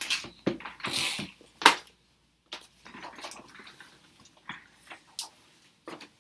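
Handling noise as someone moves about and picks things up: irregular knocks, clicks and short rustles, busiest in the first two seconds, with one sharp click near the two-second mark.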